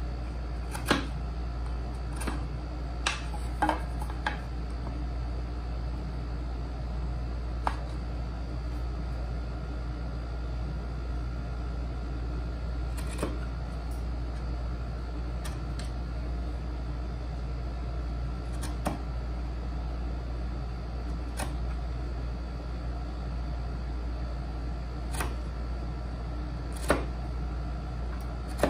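Hand woodworking tools knocking and tapping on wood at a workbench while a dovetail joint is cut: about ten short, sharp taps spaced irregularly, over a steady low hum.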